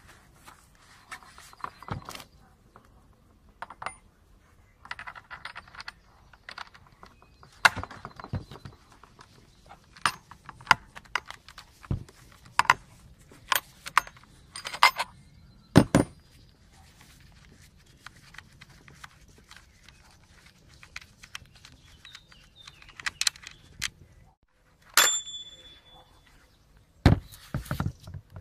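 Plastic and metal parts of an Alpina A 305 petrol chainsaw being handled and fitted together during assembly: irregular clicks, knocks and clatter, with one short ringing tone near the end.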